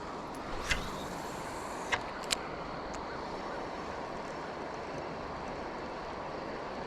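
Steady rush of flowing river water, with three brief sharp clicks in the first two and a half seconds.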